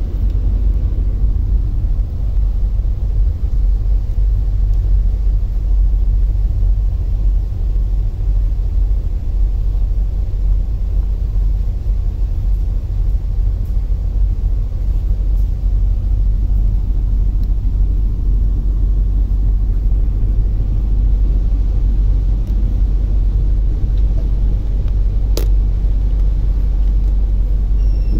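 Passenger ferry underway: a steady low rumble of its engines and hull heard aboard. One sharp click near the end.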